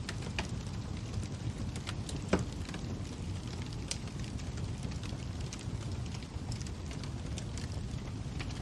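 Fire crackling: a steady low rumble with scattered snaps and pops, the loudest about two seconds in.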